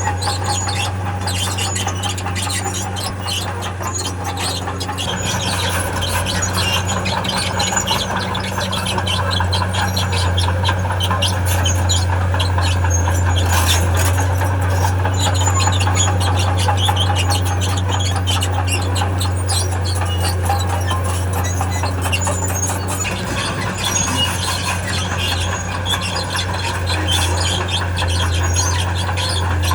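Steel crawler tracks of a heavy diesel machine squealing and clanking as it moves, over the steady low running of its diesel engine.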